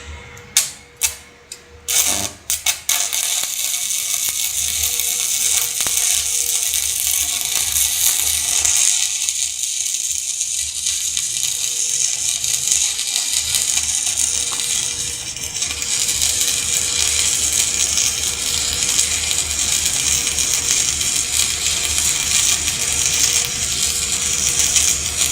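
Electric arc welding with a Daesung welding machine: a few short arc strikes in the first couple of seconds, then the arc catches and crackles steadily for the rest of the time.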